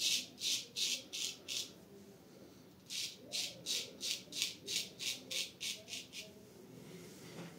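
Full-hollow-ground Solingen straight razor (Ch. Suy Louvain) scraping through lathered stubble in short, quick strokes, about three to four a second. There is a run of strokes, a pause of about a second, then a longer run that stops shortly before the end.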